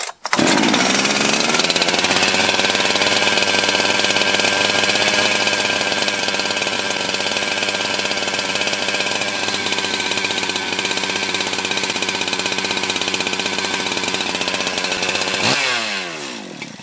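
Rebuilt Jonsered two-stroke chainsaw firing up on its first start after a full rebuild and running steadily at idle through its first heat cycle. Near the end the engine winds down and stops.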